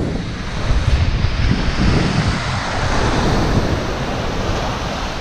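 Ocean surf breaking and washing up a beach, with strong wind buffeting the microphone in a low rumble.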